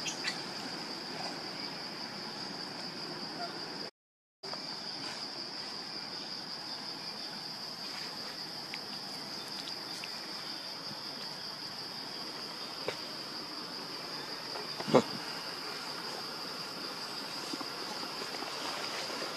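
Steady high-pitched drone of forest insects, cutting out completely for about half a second around four seconds in. One sharp knock or snap stands out about three-quarters of the way through.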